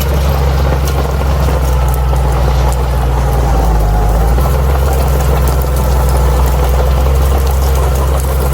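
Bulldozer's diesel engine running steadily with a deep, low note that shifts slightly about four seconds in.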